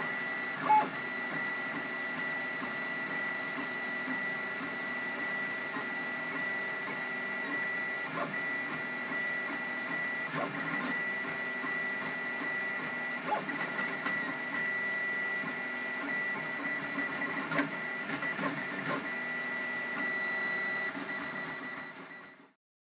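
MendelMax 3D printer running a print, slowly laying down its first layer. Its stepper motors give a steady whine with a constant high tone and occasional clicks. The sound fades out near the end.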